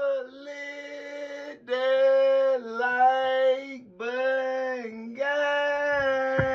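A voice singing long held notes without clear words, in about five short phrases with small dips in pitch between them; the first phrase is quieter. A single sharp click sounds near the end.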